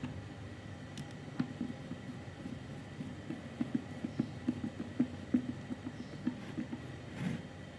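Irregular light knocks and clicks of things being handled, with a short rustle near the end.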